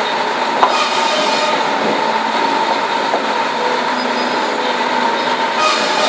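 Sawmill machinery running steadily with a constant whine, with short spells of added hiss about a second in and near the end. A single sharp knock comes about half a second in.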